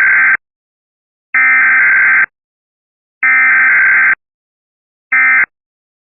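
Emergency Alert System SAME data header for a Required Weekly Test: harsh two-tone digital screeches about a second long, a second of silence between them. The tail of one burst, then two full ones, the last ending about four seconds in, followed a second later by a short half-second burst of the end-of-message code.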